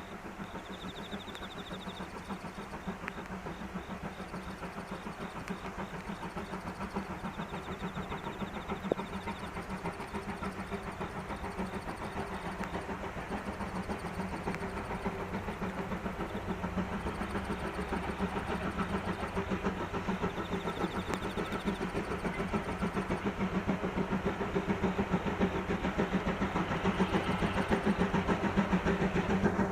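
Tobu Railway's C11 325 steam locomotive hauling the SL Taiju train as it approaches, with a fast rhythmic beat over a steady low hum that grows steadily louder.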